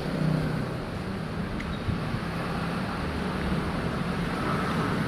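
Steady traffic noise with a low engine hum.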